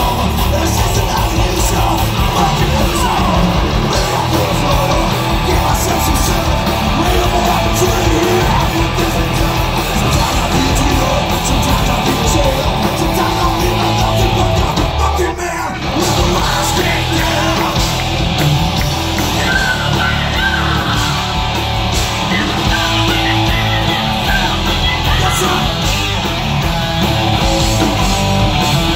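Live metal band playing loud, with distorted electric guitars, drums and shouted vocals. The music briefly drops back for a moment about halfway through, then comes back in full.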